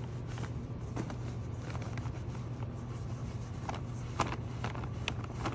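A steady low background hum, with faint rubbing and a few light ticks from a microfiber cloth wiping a motorcycle's plastic dash and switch panel.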